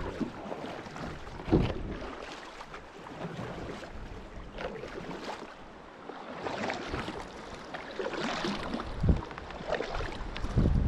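Water and wind noise around a fishing kayak on a river, with a few dull knocks: one about a second and a half in, another near the end.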